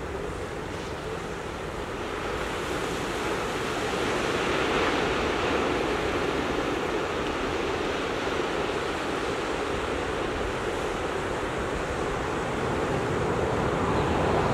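Ocean surf breaking and washing over rocks: a steady rush of water that swells a few seconds in and again near the end.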